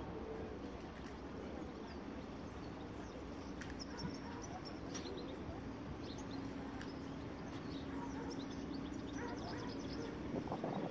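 Quayside outdoor ambience: a steady background rush with a low steady hum through the middle, scattered short high bird calls, and a couple of knocks near the end.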